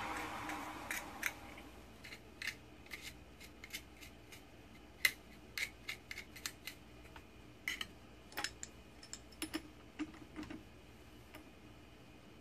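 Milling machine spindle coasting down over the first couple of seconds, then scattered light clicks and scrapes of aluminum chips and metal tooling being brushed and handled on the mill vise and end mill.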